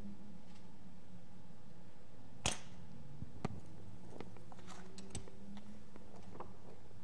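A sharp knock about two and a half seconds in, then a scatter of lighter clicks and taps as objects are handled and set down on a table, over a faint steady hum.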